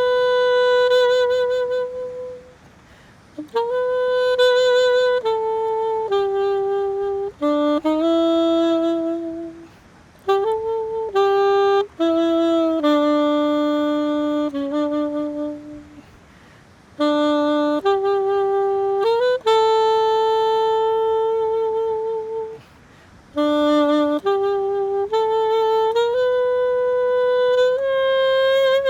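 Solo saxophone playing a slow hymn melody: one line of long, held notes, some with vibrato, in phrases separated by short pauses.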